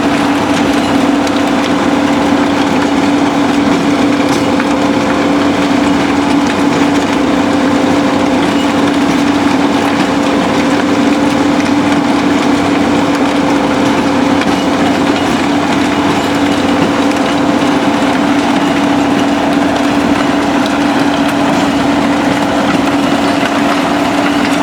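SBM impact crusher running and crushing concrete rubble, with heavy diesel machinery working alongside: a constant loud machine drone with a steady hum under a dense crackling noise.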